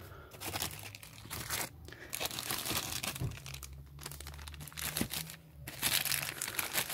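Clear plastic bag crinkling and rustling as it is handled around a speaker, in irregular bursts with a few short pauses.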